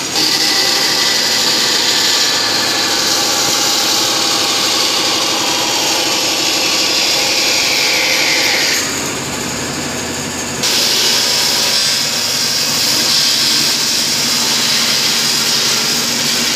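Shop Fox W1729 bandsaw cutting through a wooden plank, a loud steady hiss of the blade in the wood. About nine seconds in the cut eases for a couple of seconds with the machine still running, then the blade bites in again.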